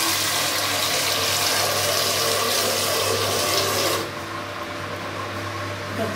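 Tap water running into a stainless steel pot, shut off about four seconds in. A low steady hum runs underneath.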